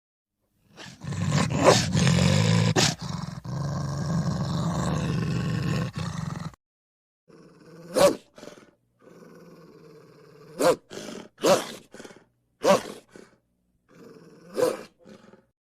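Wolf growl sound effects for the extinct cave wolf: a long, deep growl lasting about six seconds, then after a short gap a quieter low growl broken by five short, sharp calls.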